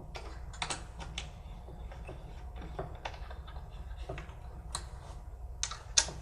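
Metal bolts and hardware being fitted and tightened on a poplar-wood bench leg: light, irregular clicks and taps, with one sharper click near the end.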